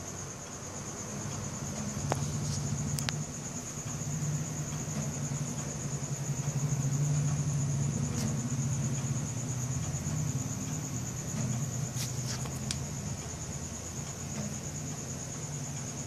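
Crickets trilling in a steady, unbroken high chorus. Under it runs a low engine hum that swells through the middle and then eases, with a few faint clicks.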